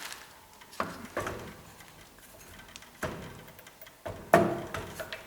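A few separate metallic clinks and knocks, the loudest near the end, as an old long 5/8-inch socket and wrench are fitted onto a blind suspension bolt.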